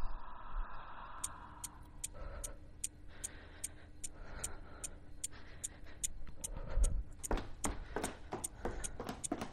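Steady, evenly spaced ticking, about two and a half ticks a second, starting about a second in. In the last couple of seconds heavier knocks join on the same beat.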